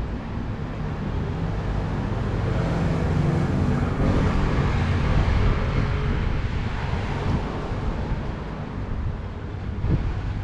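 Street traffic: a motor vehicle drives past close by, its engine and tyre noise building to a peak about halfway through and then fading.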